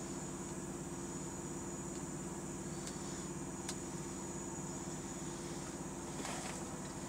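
Semi truck's diesel engine idling steadily, heard inside the cab as an even, low pulsing hum. A couple of faint clicks come near the middle, and a brief rustle comes about six seconds in.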